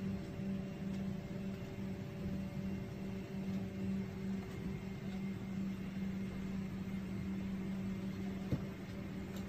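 Steady airliner cabin hum: a constant low drone with an even ventilation hiss, and one brief knock near the end.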